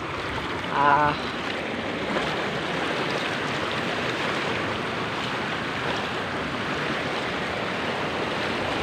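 Floodwater rushing steadily across a grassy field, with a brief voice about a second in.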